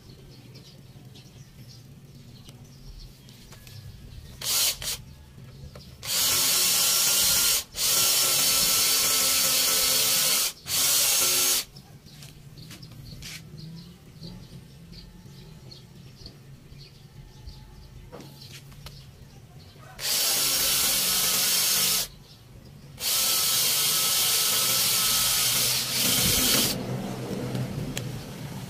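18-volt cordless drill running in several bursts of one to three seconds, drilling a small hole in a metal part of a motorcycle monoshock, with a long pause in the middle.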